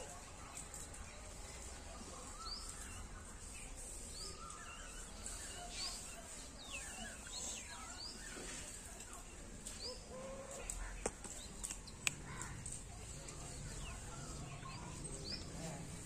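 Small birds chirping, short rising chirps about once a second over a steady high hiss, with two faint clicks near the end.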